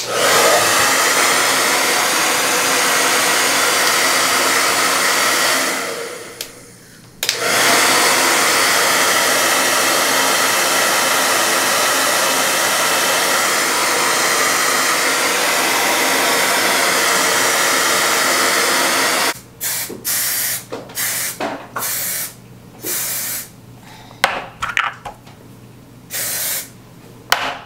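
Handheld hair dryer blowing steadily. It fades out about six seconds in and starts again a second later, then cuts off about nineteen seconds in, leaving scattered short clicks and knocks.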